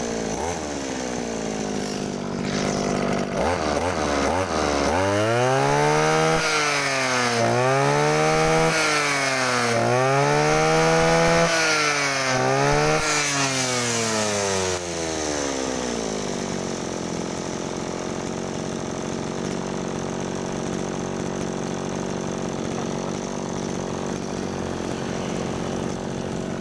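Small two-stroke Mitsubishi TL231 brush cutter engine running, its throttle blipped several times so the pitch rises and falls repeatedly, then settling to a steady idle about two-thirds of the way through.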